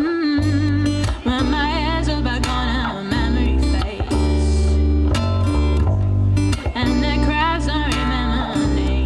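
A woman singing with vibrato over a strummed acoustic guitar, played live.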